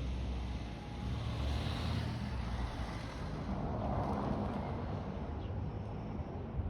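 Wind rumbling on the microphone over steady outdoor noise; no siren tone is sounding.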